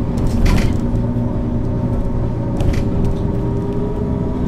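Mercedes-Benz O 530 G Citaro articulated bus's diesel engine running at a steady, even speed, with two short hisses about half a second and two and a half seconds in.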